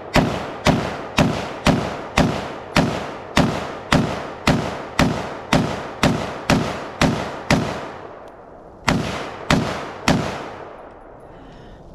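A rifle fired rapidly, about two shots a second: some fifteen shots, a short pause, then three more before it stops.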